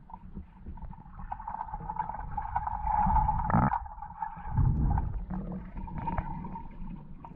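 Muffled underwater sound of moving water picked up by a submerged camera: low rumbles and surges, the loudest about three and a half and five seconds in, with scattered small clicks and a steady high hum underneath.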